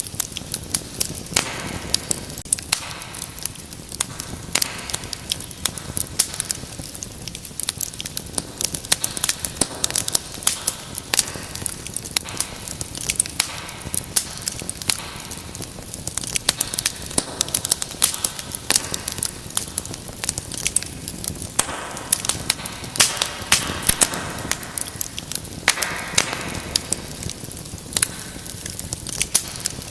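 Wood fire in a fireplace crackling: a steady stream of sharp pops and snaps, some louder than others, over a low hiss of burning.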